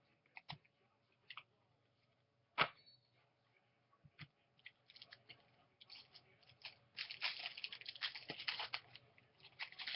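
A few scattered light clicks and taps, then from about seven seconds in a dense crinkling and tearing of a trading-card pack's foil wrapper being torn open.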